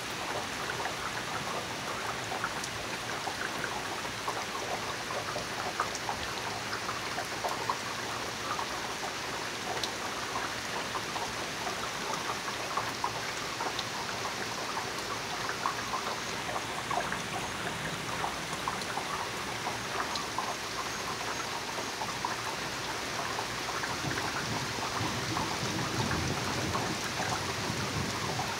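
Rain pouring steadily, with a dense patter of close drops. A low rumble of thunder rises near the end.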